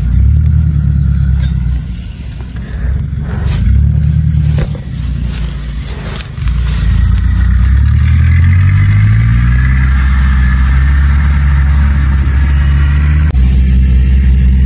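A motor engine running close by, speeding up about six seconds in and then holding a steady, loud drone. Hands scrape and knock at soil in the first few seconds.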